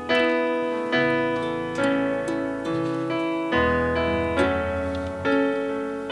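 Slow, gentle piano music: chords and single notes struck about once a second and left to ring out.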